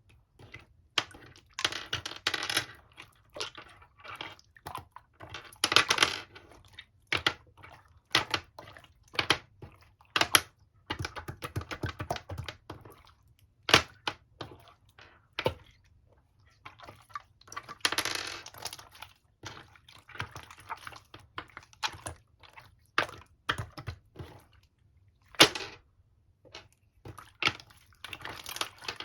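Slime being squeezed and stretched by hand: irregular sharp pops and crackles of trapped air, mixed with longer wet squishing stretches.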